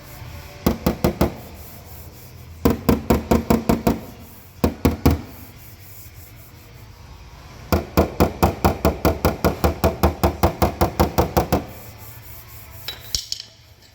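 Hammer tapping on car-body sheet metal in quick runs of strikes, about six a second: a few short runs, then a longer run of roughly four seconds, ending with a few lighter taps.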